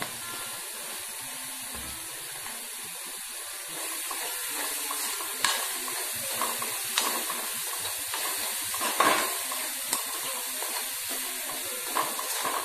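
Ivy gourd and coconut stir-fry sizzling steadily in a wok. The sizzle gets louder a few seconds in, and from about five seconds in a metal spoon stirs the mix, clicking and scraping against the pan now and then.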